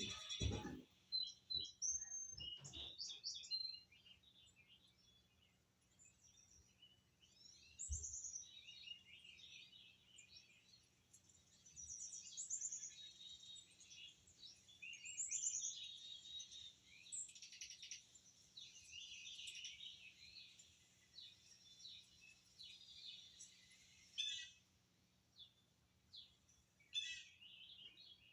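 Small birds chirping and twittering in many short, high calls and trills, busiest in the middle stretch. A few soft thumps come in the first few seconds.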